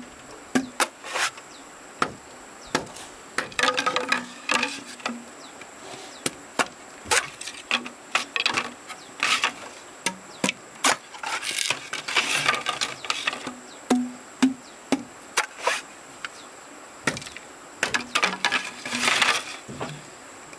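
Wood being chopped and worked by hand: irregular sharp chopping knocks, with three short stretches of scraping and splintering.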